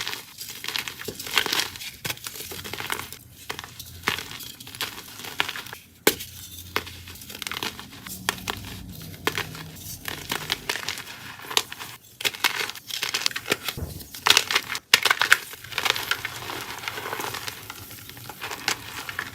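Blocks of gym chalk being crushed and crumbled: a continuous run of irregular dry crunches and crackles.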